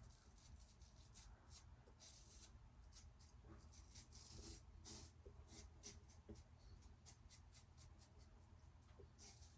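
Faint, quick scraping strokes of an open-comb injector razor blade cutting through lathered stubble, several a second and irregular.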